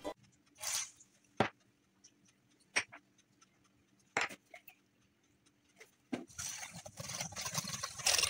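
A few isolated taps and clicks against a stainless steel bowl, then from about six seconds in a quick run of scratchy scraping as eggs, flour and milk are beaten into a batter in the bowl.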